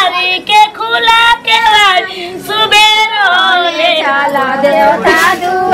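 High female voices singing a Bhojpuri wedding folk song of the kind sung while haldi is applied, with long held and bending notes.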